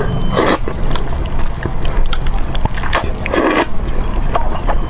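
A person eating spicy Buldak fire noodles close to the microphone, with a few short slurps and chewing noises near the start and about three and a half seconds in, over a steady low rumble.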